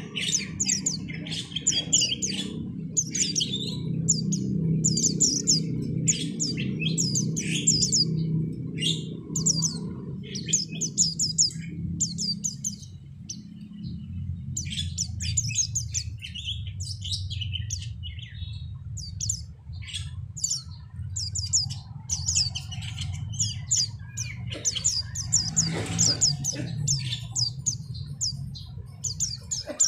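White-eyes (pleci, Zosterops) in breeding condition, chirping and twittering in rapid high runs of notes, one bird after another, over a steady low hum.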